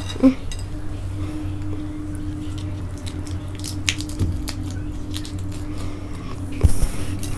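A large cooked prawn being peeled by hand: the shell cracks and crackles and the flesh squishes in a run of small clicks, louder near the end. A steady low hum runs underneath.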